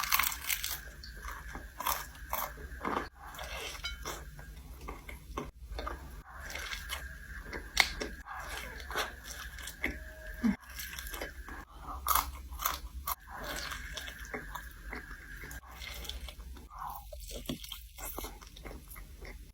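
Close-miked biting and chewing of crispy fried chicken skin: repeated sharp crunches with chewing in between.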